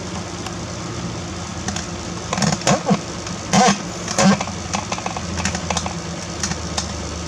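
A steady low mechanical hum, with a few brief clatters and knocks about two and a half to four and a half seconds in.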